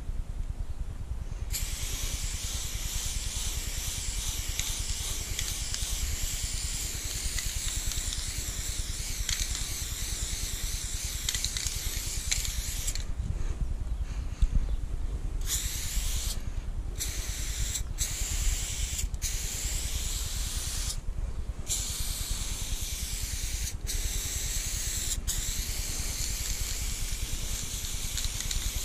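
Aerosol spray-paint can spraying: one long steady hiss of about eleven seconds, then after a short pause a string of shorter sprays, one to three seconds each, with brief breaks between, over a steady low rumble.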